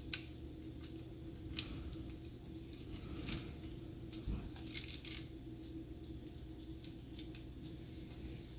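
Scattered light metallic clicks and clinks from a hand wrench and the clutch spring bolts as the Rekluse clutch springs are tightened down, over a steady low hum.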